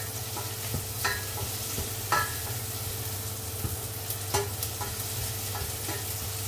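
Garlic and onion sizzling in hot oil in a stainless steel saucepan while a nylon spatula stirs them, sautéing the base for a curry. A few times the spatula knocks against the pot with a short metallic clink.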